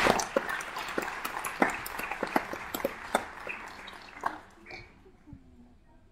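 Audience applause in a school auditorium, loud at first, then thinning to scattered claps and dying away after about four and a half seconds.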